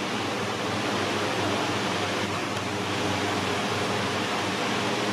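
Steady rushing background noise with a low, even hum beneath it; no distinct calls or knocks stand out.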